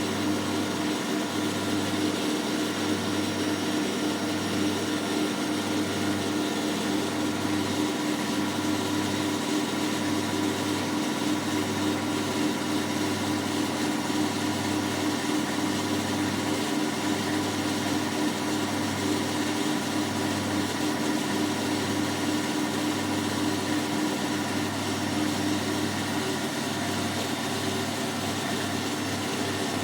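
Hotpoint NSWM 843C inverter-motor washing machine running on spin: a steady motor hum with a low throb about once a second that comes faster near the end.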